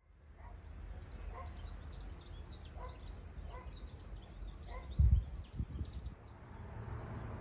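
Many small birds chirping and singing outdoors, with a lower call repeated a few times. Under this runs a steady low wind rumble on the microphone, and there is one brief loud low thump about five seconds in.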